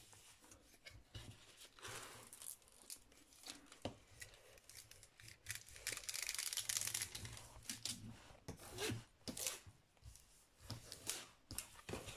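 Protective film being peeled off the sticky surface of a diamond painting canvas, with scattered crackles and crinkles of the film, densest and loudest about six to seven seconds in.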